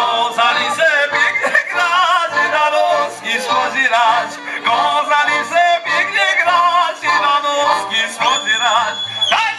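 Live Polish folk band playing: voices singing a lively tune with vibrato over accordion, clarinet, violin and a double bass keeping an even beat. A long steady high note is held near the end.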